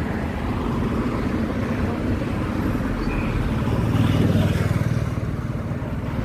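Road traffic passing with engines running: a small flatbed truck, then a small delivery motorcycle whose engine passes close and is loudest about four seconds in.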